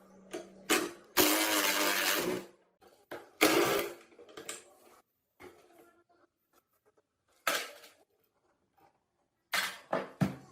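Workshop work on metal parts: a series of separate scraping and knocking noises, the longest lasting about a second and a half near the start, with quiet gaps between.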